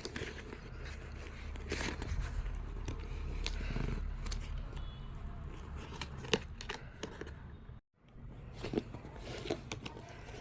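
A parcel's packaging being cut and torn open by hand, with irregular scissor snips, scraping and crinkling of the wrapping. The sound drops out completely for a moment about eight seconds in.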